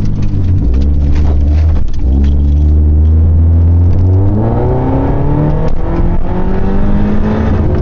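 Supercharged Scion tC's four-cylinder engine heard from inside the cabin while driving: a steady low drone, then rising in pitch about four seconds in as the car accelerates, then holding at the higher pitch.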